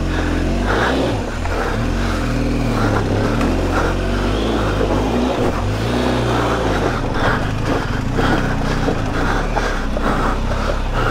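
BMW GS boxer-twin motorcycle engine revving up and down under load as the heavily loaded bike is worked up a steep, slippery dirt trail with traction control switched off.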